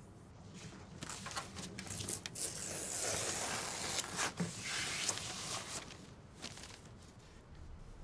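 Paper rustling and crinkling as a card mailer envelope is handled and opened and a letter is drawn out. It starts about a second in and is loudest in the middle, with many small crackles.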